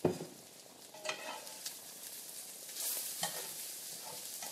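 Spiralized turnip and onions sizzling in a cast iron pan as they are stirred, with a sharp knock of the utensil against the pan at the start and a few lighter clicks. The sizzle swells briefly about three seconds in.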